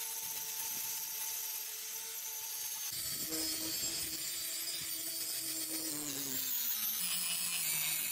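Electric angle grinder with an abrasive disc grinding the steel edge of an axe head: a steady high grinding hiss over the motor's whine. The sound changes abruptly about three seconds in, and the motor pitch sags near the end as the disc is pressed harder into the metal.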